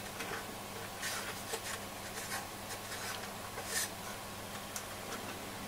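Faint, scattered rustles and small clicks of fingers moving wiring and handling the metal chassis of an opened communications receiver, the largest a little before four seconds in, over a steady low hum.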